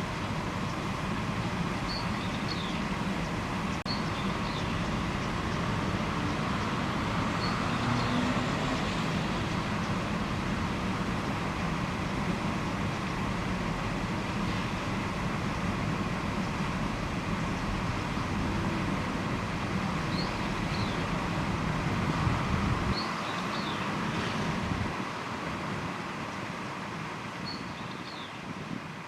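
Steady rumbling background noise with short, high bird chirps every few seconds. The low rumble thins out about three-quarters of the way through, and the whole sound fades near the end.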